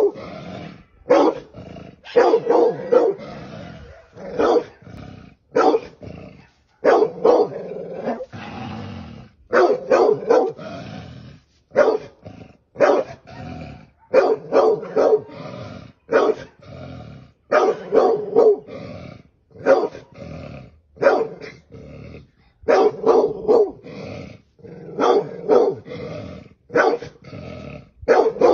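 A dog barking at a snake: loud, short barks in quick runs of two to four, repeating every second or two with brief quieter gaps between.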